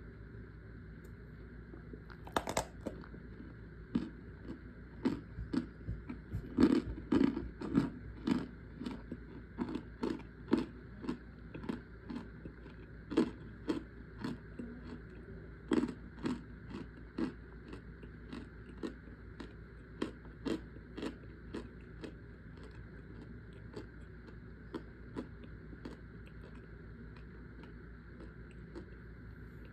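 Chewing on chunks of compacted cornstarch: a run of dry crunches, about one to two a second, loudest a few seconds in and growing softer toward the end.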